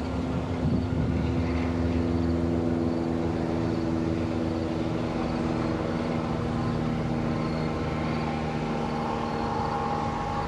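A train's engine running steadily at the station, a low rumble under a steady multi-pitched hum that shifts slightly near the end.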